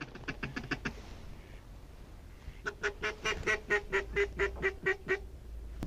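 Snow goose honking: a short run of calls near the start, then a rapid, even run of short honks at about five a second through the middle.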